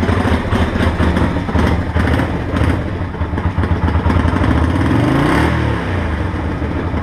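Yamaha Virago 125's small air-cooled V-twin running at idle, with one rev that rises and falls back about five seconds in.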